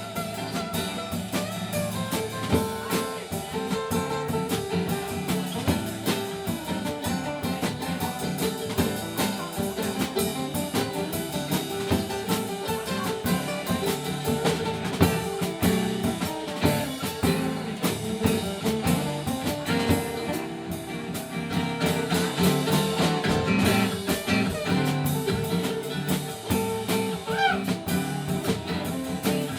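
Live band playing an instrumental passage with guitar and drum kit, no singing.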